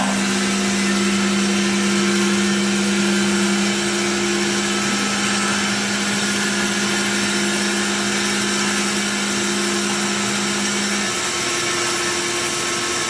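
JMT DCBA 360 horizontal dual-column band saw running, blade feeding slowly through a clamped piece of wood, with a steady machine hum over a broad whirring noise. The lower of two hum tones stops about eleven seconds in.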